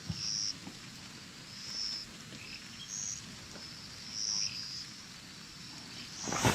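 A small animal's short, high call, repeated roughly once a second over faint outdoor background noise. Near the end there is a brief, louder rustle or scrape.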